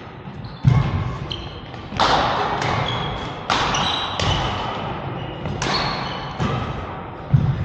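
A badminton rally: racket strings striking the shuttlecock about every one and a half to two seconds, each hit sharp and echoing in the hall. Short high sneaker squeaks on the court floor come between the hits.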